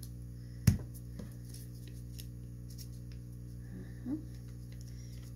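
Hands gluing paper cut-outs onto a poster: a sharp tap about a second in, a fainter one just after, and soft glue-stick and paper handling noises over a steady low hum.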